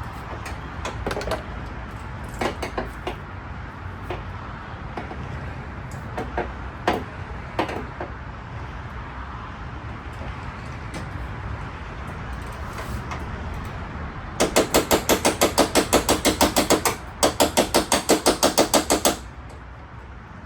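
Scattered tool clinks and knocks, then, near the end, two loud bursts of two to three seconds each of an impact wrench hammering as it works fasteners loose.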